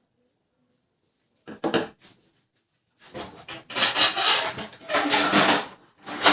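Parts of an opened Canon LBP 2900 laser printer being handled: a couple of short knocks about a second and a half in, then several seconds of rubbing and scraping.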